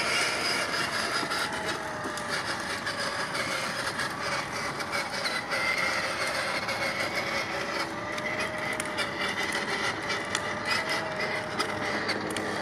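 Battery-powered ride-on toy ATV driving along a concrete sidewalk: a steady whine from its electric motor and gearbox over the rumble of its plastic wheels on the concrete, with scattered clicks.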